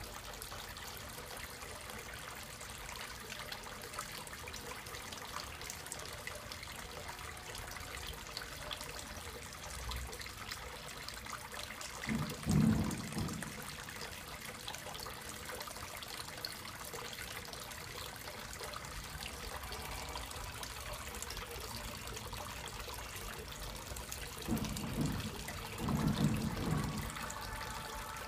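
Water trickling steadily into a small pond tub from its submersible pump's return. Two short, low, muffled bumps come through, one just before halfway and a longer one near the end.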